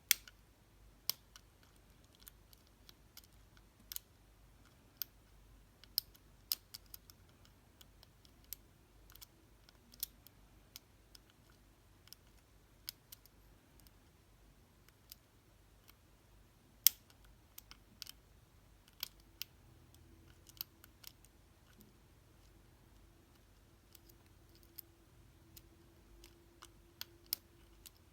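Lock-picking tools working the dimple pins inside a Reece LOTO padlock: scattered, irregular small clicks and ticks from the pick and tension wrench in the keyway, a few of them sharper and louder.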